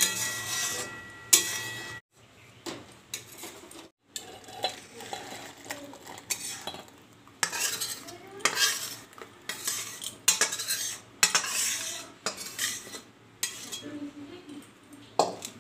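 A metal spatula knocking and scraping against a metal kadai as a thick poppy-seed curry is scraped out into a steel bowl. Two sharp clanks that ring briefly come at the start, about a second apart, then a long run of irregular scrapes follows.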